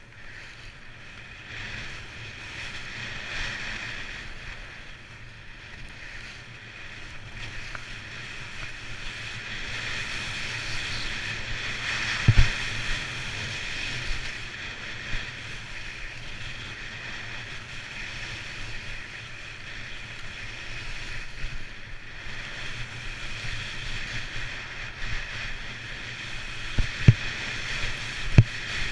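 Skis sliding and carving on packed snow, a steady swishing hiss that swells and fades, with wind buffeting the microphone of a helmet-mounted camera. A few low thumps stand out, the loudest about twelve seconds in and two more near the end.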